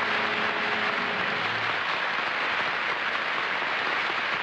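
Studio audience applauding steadily. A faint held tone fades out about a second and a half in.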